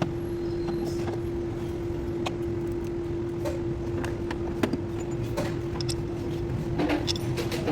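A steady machine hum with a constant pitch, and scattered short clicks and knocks of hand-tool work, which come more often near the end.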